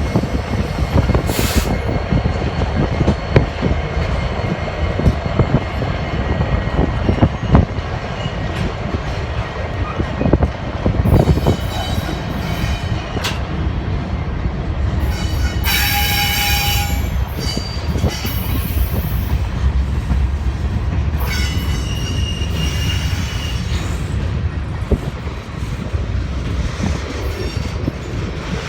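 Union Pacific freight train of grain hopper cars rolling past, a steady heavy rumble of wheels on rail. Short high-pitched wheel squeals come and go as the cars take the curve onto the lead track, the strongest a little past halfway through.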